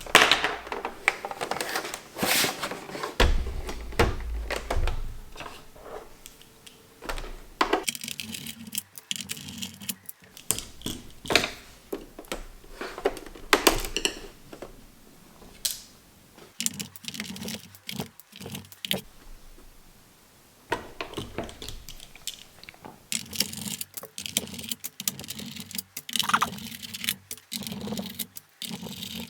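Irregular clicks, taps and light clattering of small hard objects being handled, in busy bursts with quieter gaps between.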